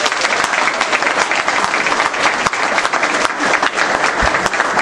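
Audience applauding, many people clapping at once in a dense, steady patter.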